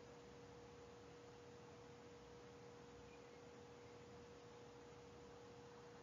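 Near silence: faint hiss with a steady faint tone and a weaker, lower tone beneath it.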